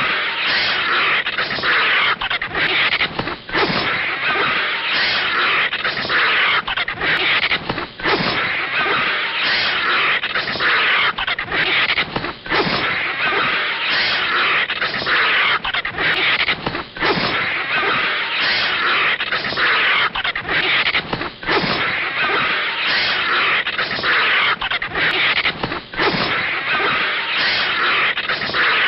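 Animated-cartoon sound effects of a snake and a vulture fighting: a dense hissing, scraping noise with frequent short breaks. It repeats as a loop about every four and a half seconds.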